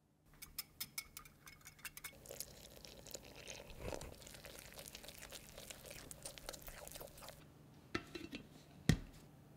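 A spoon clinking and scraping against a glass jar and measuring cup, then sourdough starter mixed with water poured onto flour in a glass bowl. Near the end a plastic lid is pressed onto the glass bowl, ending in one loud thump.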